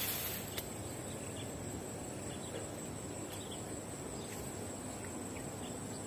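Insects chirring steadily in one high, unbroken tone, with a faint click about half a second in.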